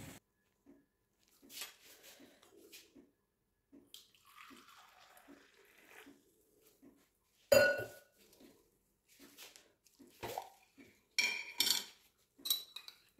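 Dishes and utensils clinking and clattering with scattered light knocks. One sharp ringing clink comes about seven and a half seconds in, and a quick run of ringing clinks about eleven to twelve seconds in.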